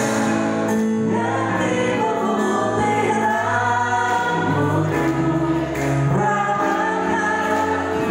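A woman and a man singing a song together into microphones, with a live band on keyboard and guitars, all amplified through a PA.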